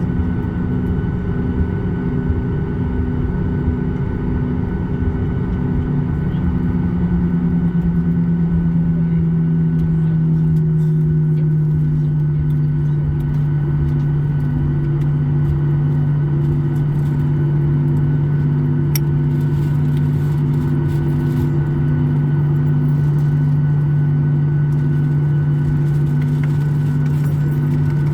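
Cabin noise of a Boeing 737-800 in flight: a steady drone and rush from its CFM56-7B engines with a slow pulsing beat. The engine tone drops in pitch a few seconds in and then holds steady as the engines throttle back.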